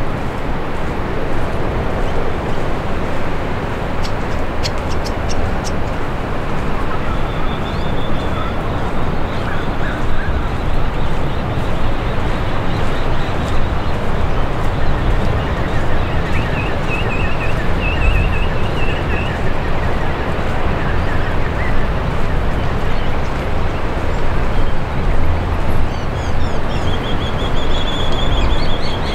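Steady wind buffeting the microphone over the rushing wash of surf. Small birds chirp about a quarter of the way in, trill a little past halfway and chirp again near the end.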